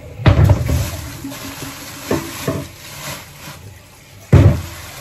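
A plastic shopping bag rustling as items are taken out of it and handled, with two loud thumps, one just after the start and one near the end.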